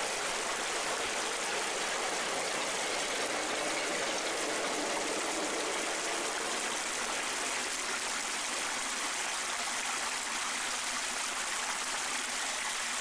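Small stream running right at the microphone: a steady, close rush of water.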